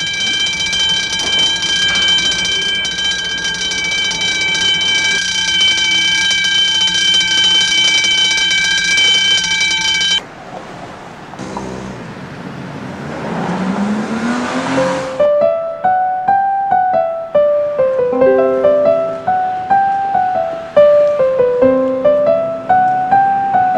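A steady high-pitched whine with many overtones for about ten seconds, then a subway train's rushing noise with a motor whine rising in pitch as it pulls out. About fifteen seconds in, piano music starts, a repeating figure of notes stepping up and down.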